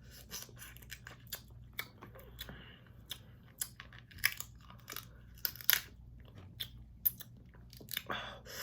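Close-miked eating of a seafood boil: wet chewing and smacking mixed with irregular sharp crackles and clicks. The two loudest snaps come about five and a half and seven seconds in.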